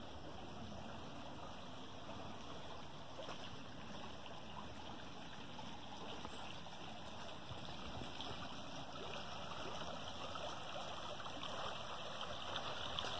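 Shallow creek water rushing and trickling over rock ledges in a steady wash, growing gradually louder toward the end.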